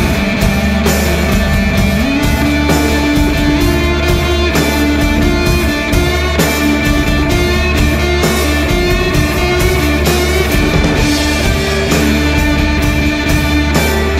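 Rock music with electric guitar and drums, no vocals.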